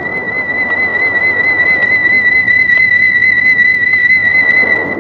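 Film score: one high, whistle-like note held with a slight vibrato, over a steady rushing noise. The note fades just as other instruments come in near the end.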